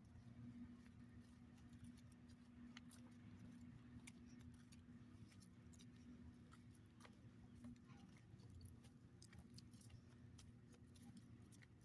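Near silence: a faint steady low hum with scattered small ticks.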